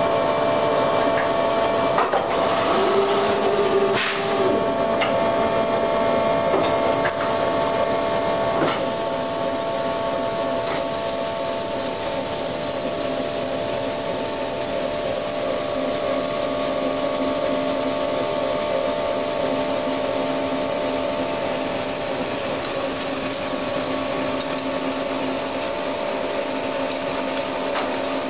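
Drilling unit of a Behringer-Vernet CNC sawing-and-drilling plant boring into a steel section: a steady machine hum with several fixed tones. A few sharp clicks and knocks come in the first nine seconds or so, and after that it runs evenly.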